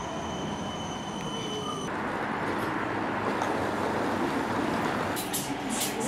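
City tram standing at a stop with a steady high electrical whine, cut off abruptly about two seconds in; then a steady hum of street noise, and near the end a run of sharp clicks.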